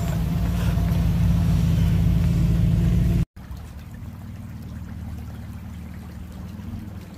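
Full-size Ford Bronco's engine running at steady revs as it drives a muddy dirt trail. After a sudden cut about three seconds in, a shallow creek running over gravel, with a faint low engine hum from a distant truck.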